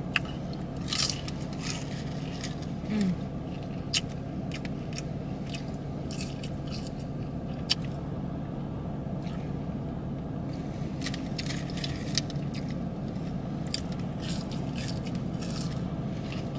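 Close-up eating sounds of a gyro and fries: chewing and biting, with scattered clicks and scrapes, over a steady low hum.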